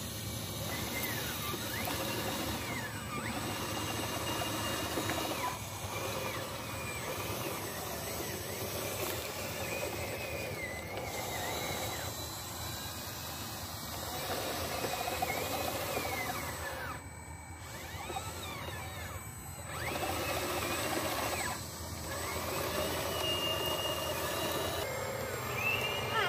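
RC model Komatsu bulldozer's small electric drive motors whining as it pushes dirt, the pitch rising and falling again and again as the throttle changes.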